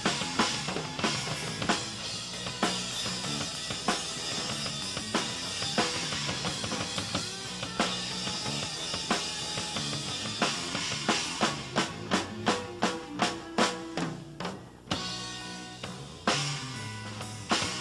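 Live rock band playing an instrumental passage with no singing: electric guitar over a Pearl drum kit. Past the middle the drums play a quick run of hits, the sound drops briefly, and the full band comes back in near the end.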